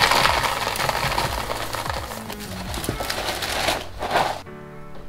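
Dry puffed cereal pieces (Dunkin' Mocha Latte cereal with marshmallows) pouring out of a plastic bag into a plastic container, a dense rattle of small pieces that stops about four seconds in. Background music plays underneath and carries on alone at the end.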